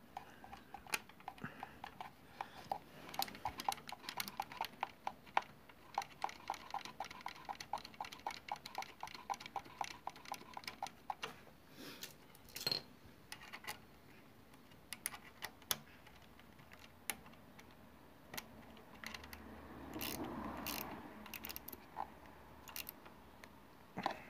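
Socket ratchet clicking in quick, even strokes as the gear-lever clamp bolt on the selector shaft is run in, for about ten seconds, followed by scattered knocks and handling of tools and parts.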